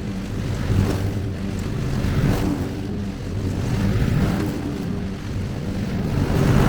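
Husqvarna YTH22V46 22 HP riding mower engine running steadily, now that its out-of-adjustment choke cable has been reset to cure the hard starting.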